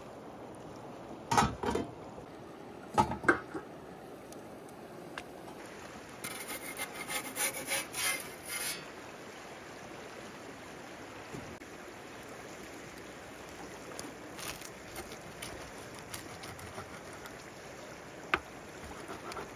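Two sharp knocks in the first few seconds, then a few seconds of scraping, with a single click near the end, over a steady background hiss.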